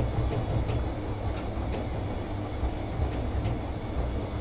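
Bosch front-loading washing machine drum turning a foamy load before the spin, the tub bouncing on its suspension with a low, pulsing rumble and scattered light knocks, one sharper click about a second and a half in. The bouncing happens whenever it goes to spin after the wash, and the owner fears it will wreck the suspension.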